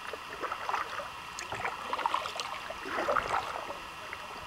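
Kayak paddle strokes in the water: splashing and dripping in three uneven bursts about a second apart.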